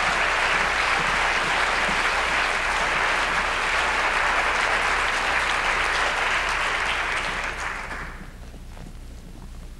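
Audience applauding, dying away about eight seconds in and leaving a faint low hum.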